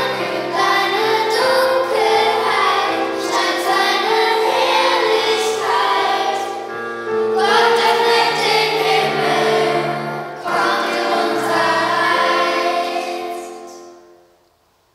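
Children's choir singing with piano accompaniment, the closing phrases of the song. The music fades out about a second before the end.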